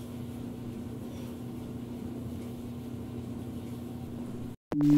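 Clothes dryer running with a steady hum. Just before the end it cuts off abruptly, and a loud electronic tone starts, falling in pitch.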